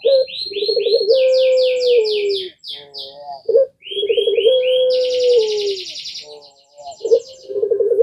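A puter pelung (Barbary dove) cooing, with long drawn-out low coos that hold and step down in pitch, three main phrases with short notes between them. Another bird's fast, high, repeated chirps and trills answer over the coos.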